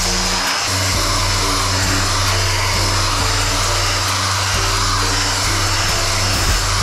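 A power sander whirring steadily on hardened body filler, with a thin steady whine, under background music with a repeating bass line.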